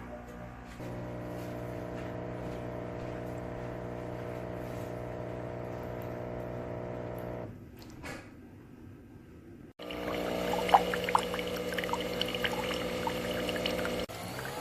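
Nespresso Vertuo coffee machine brewing: a steady machine hum with liquid pouring, which stops about seven and a half seconds in. After a quieter stretch it comes back suddenly near the ten-second mark, now with small clicks and drips.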